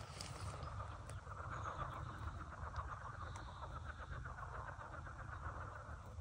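Marsh ambience: a steady, fast-pulsing trill from calling animals, with a low rumble beneath it. A higher buzz joins briefly in the middle.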